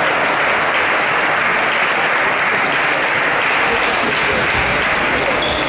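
Spectators clapping steadily, with voices mixed in; the clapping thins out near the end.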